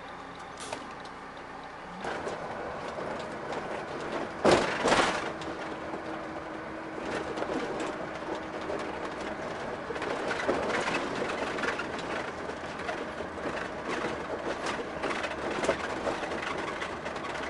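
Road and engine noise inside a moving motorhome cabin, rising about two seconds in, with scattered rattles and two loud knocks close together near the five-second mark.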